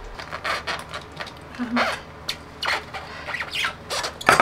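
Irregular clattering, scraping and knocks of e-bike parts being handled during assembly, with the front fat-tyre wheel moved by hand; the loudest knock comes near the end.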